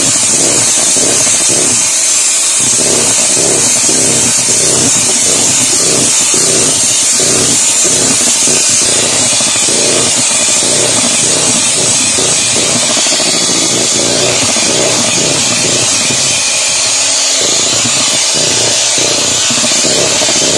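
Electric hand mixer running steadily at speed, its beaters whipping thick white cream in a stainless steel bowl. It is a loud, steady motor sound with a high hiss over a fast flutter.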